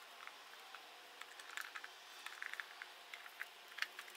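Faint, irregular small clicks and taps of a plastic junction-box cover being handled and fitted onto its box, with a sharper click at the start and little clusters of clicks through the middle and near the end.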